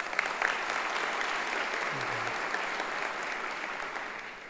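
Large audience applauding, the clapping holding steady and then fading out near the end.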